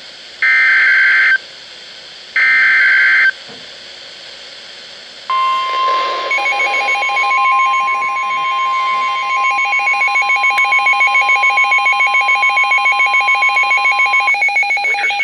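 Emergency Alert System signal: two SAME digital data bursts, about a second each and a second apart. After a short pause, the steady 1050 Hz NOAA Weather Radio warning alarm tone is held for about nine seconds. A rapidly pulsing electronic alert beep, about four pulses a second, is layered over it from about six seconds in.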